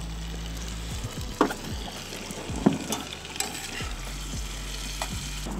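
Potatoes frying in butter in a pan on a camp stove, a steady sizzle, stirred with a spatula that clicks and scrapes against the pan now and then.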